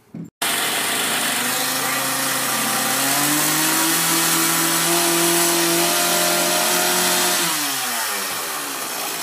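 An engine running, its pitch rising about three seconds in, holding steady, then falling back from about seven and a half seconds.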